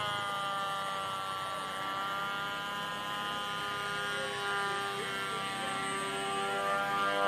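Radio-controlled model plane in flight, its electric pusher motor and added engine-sound maker giving a steady buzzing, engine-like tone that drops in pitch right at the start as the throttle eases.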